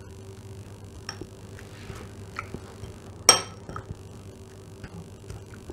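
A metal spoon stirring sliced onion and dill in a ceramic bowl, with light scrapes and clicks and one sharp clink against the bowl a little over three seconds in.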